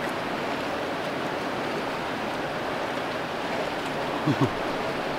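Steady rushing of a mountain stream. About four seconds in there is a brief low voice sound.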